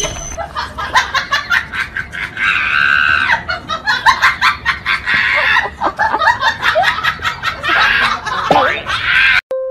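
People laughing hard in quick, repeated bursts, stopping abruptly near the end.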